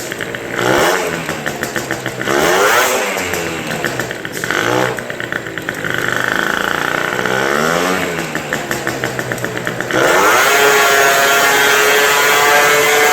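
Two-stroke scooter engine of a Gilera Runner with a 172 cc Malossi kit, revved in several quick blips whose pitch rises and falls. About ten seconds in it jumps louder and is held at high revs, the pitch climbing slowly.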